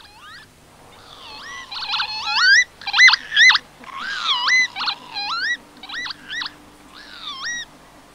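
Whistled animal calls: a quick run of swooping notes that rise and fall in pitch, about two a second, loudest around three seconds in.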